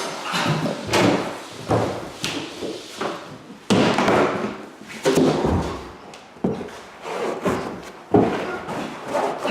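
A man burping over and over: a string of about ten short, sudden burps, roughly a second apart, each fading quickly.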